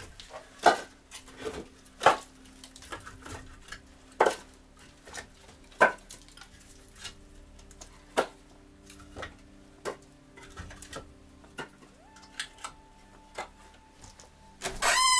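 Scattered sharp knocks and clinks of hard objects being handled and set down, about one every second or so, with a louder burst of sound right at the end.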